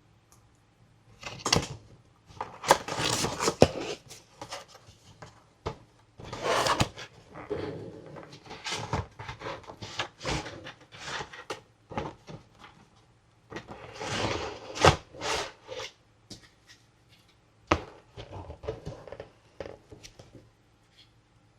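Toy packaging being handled and opened by hand: irregular bursts of rustling plastic and cardboard with sharp clicks and taps, loudest about three seconds in and again around fifteen seconds in.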